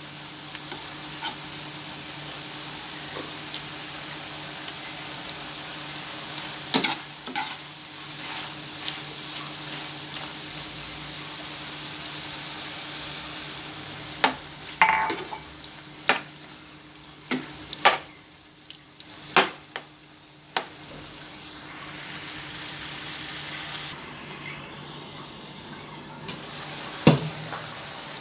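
Pork and liver igado sizzling in a frying pan as a steady hiss. Scattered sharp clicks and scrapes from a metal ladle stirring against the pan sound through it.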